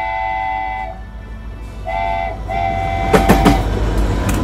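Train horn sounding a chord: one long blast, a short one about two seconds in, then another longer blast. Under it runs the steady low rumble of a moving train, which grows louder, with a few sharp clicks about three seconds in.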